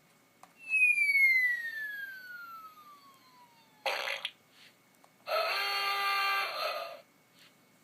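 Cartoon sound-effect machine playing clips through its small speaker: a long falling whistle, a short noisy burst, then a buzzy, raspy sound lasting about a second and a half.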